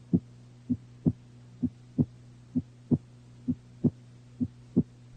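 Normal heart sounds, the lub-dub of S1 and S2 from the heart valves closing, in a slow, even rhythm of about 65 beats a minute with five full pairs. The gap from S1 to S2 (systole) is shorter than the gap to the next S1 (diastole). A steady low hum runs underneath.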